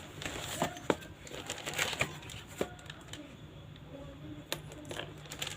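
Packaging being handled while a mixer is unboxed: crinkling, rustling and tearing, with scattered sharp clicks and knocks.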